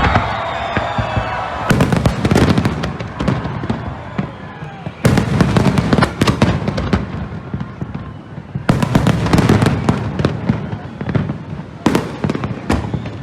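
Fireworks exploding in four volleys of sharp bangs about every three and a half seconds, each trailing off into crackling and rumble.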